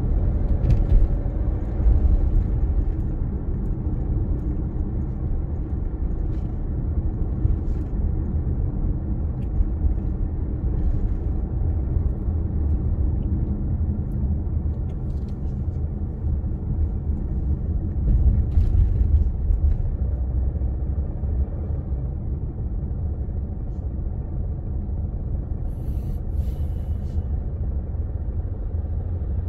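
Car driving on a city road: a steady low rumble of engine and tyres, swelling a little about two seconds in and again near the twenty-second mark.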